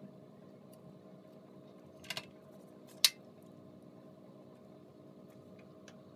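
Quiet handling sounds of hands peeling the charred skins off roasted eggplants on a paper-lined baking tray: a quick double click about two seconds in and a sharper tap a second later, over a steady low hum.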